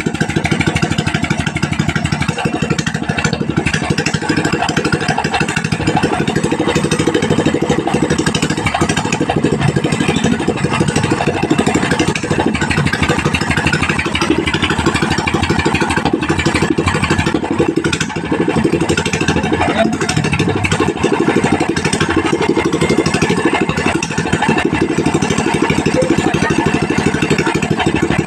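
A Pro-Quip 18 hp gasoline engine (ZS Power) running steadily at an even speed.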